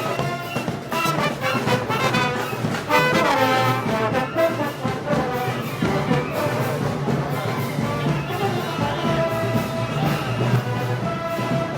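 Brass band music, with trombones and trumpets to the fore, in the style of a Moros y Cristianos festival band.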